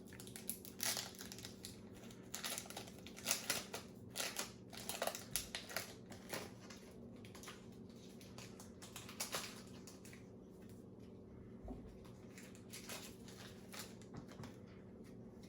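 Foil wrapper of a Pokémon booster pack crinkling and tearing as it is opened by hand, in sharp rustles that are dense for about the first ten seconds, then sparser.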